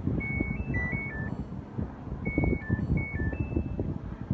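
Samsung two-in-one washer's control panel plays a short tune of stepped electronic beeps twice, a second or two apart, with low knocks underneath. The beeps come as the washer throws its IDC4 error again, which it gives when the door switch does not register the door as closed and locked.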